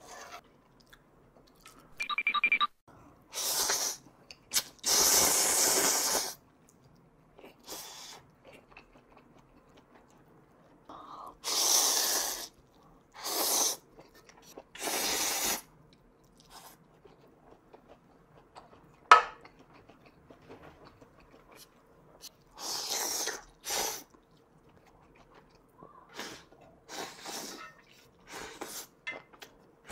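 A person slurping instant ramyeon noodles: a series of loud slurps, each lasting about a second, separated by quieter chewing. A single sharp click comes a little past halfway.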